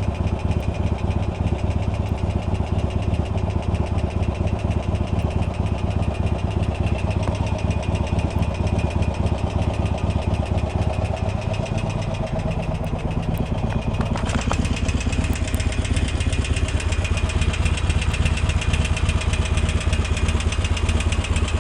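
Harley-Davidson Iron 1200 V-twin with slip-on exhausts idling steadily. Its tone shifts slightly about twelve to fourteen seconds in. The engine is being listened to for an intermittent 'ting ting knocky' noise, which the owner has noticed comes and goes when it is warm.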